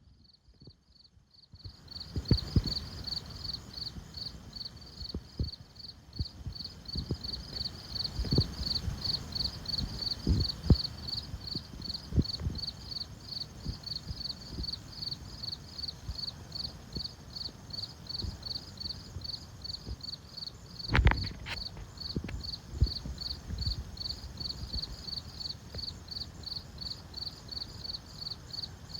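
An insect chirping in a steady, rapid, even rhythm at a high pitch, over scattered low thumps and rumbles, the loudest about two-thirds of the way through.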